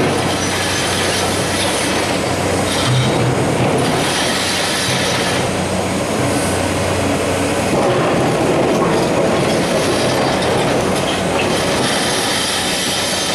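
Large CAT hydraulic excavator working: its diesel engine runs steadily under load while the steel bucket scrapes and digs through blasted rock, with stones grinding and clattering.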